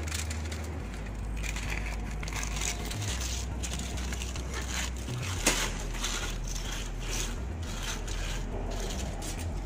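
Aluminium foil being crinkled and pulled open by hand, a continuous crackling rustle with one sharper crackle about five and a half seconds in.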